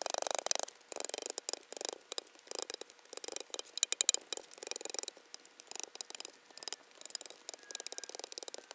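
A log of fresh-cut wood cracking and splintering as it is split lengthwise with a homemade splitting tool, its leaf-spring blade levered into the split. There are irregular crackles and snaps of wood fibres tearing along the grain, with a louder crack about four seconds in.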